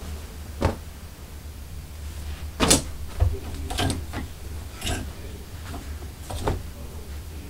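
Clothes and hangers being handled at a closet rack: half a dozen short, scattered clicks and knocks with light rustling, over a low steady hum.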